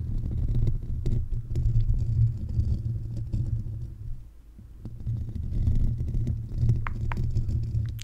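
Fingers scratching and rubbing directly on a Blue Yeti condenser microphone's metal grille, heard as a dense low rumble with faint scratchy clicks. The rubbing eases briefly about halfway through, and a few sharper clicks come near the end.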